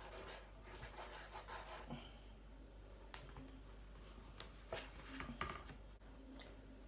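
Faint scratching and rubbing of a felt-tip marker scribbling on paper, in short strokes, with a few light taps later on.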